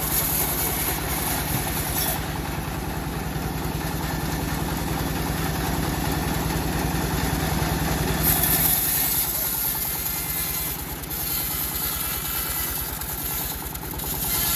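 Engine driving a homemade bandsaw sawmill running steadily, with a fine rapid pulsing; about nine seconds in its low note drops away and a higher hiss takes over.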